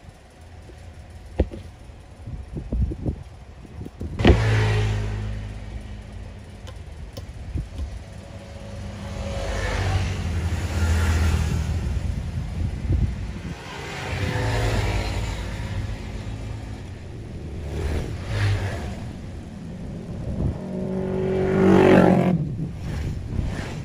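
A few light clicks, then about four seconds in a motor vehicle engine starts running close by, its low rumble swelling and fading several times as if revved.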